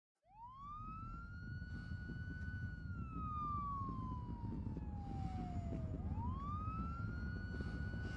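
A siren wailing slowly: its pitch rises quickly, holds, sinks over several seconds, then rises again about six seconds in. A low steady rumble sits underneath.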